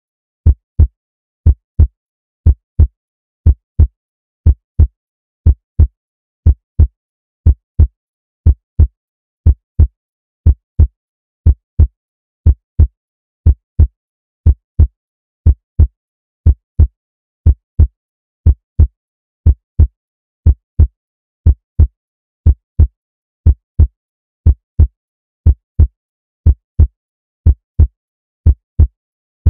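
Recorded heartbeat sound effect: a steady lub-dub double thump, low in pitch, repeating about once a second.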